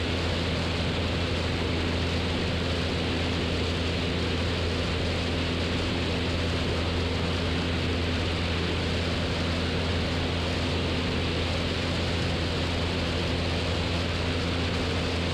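Steady drone of a 1969 Cessna 172's piston engine and propeller in flight, a constant low hum over a broad rushing hiss.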